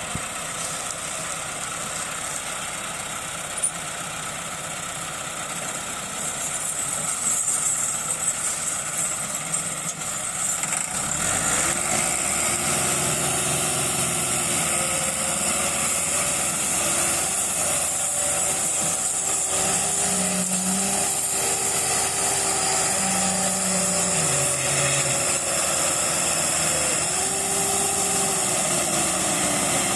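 Tractor diesel engines running steadily at low revs, then revving up about eleven seconds in and working hard. The engine note rises and falls under load as they pull the stuck, loaded sugarcane trolley.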